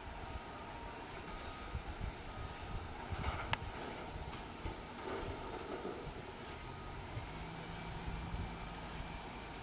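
Outdoor ambience: a steady high-pitched hiss or drone with irregular low rumbling, like wind on the microphone, and a single sharp click about three and a half seconds in.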